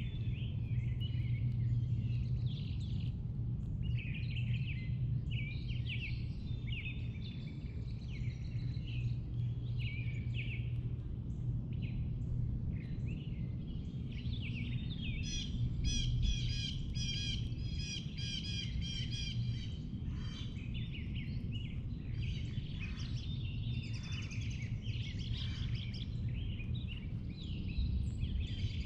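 Several songbirds singing and calling over a steady low hum. A little past the middle, one bird repeats a quick run of notes, about two or three a second, for several seconds.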